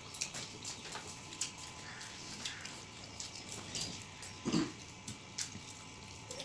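Eating sounds from two people eating rice by hand from steel plates: wet chewing and lip smacks with scattered small clicks. A brief low vocal sound comes about four and a half seconds in.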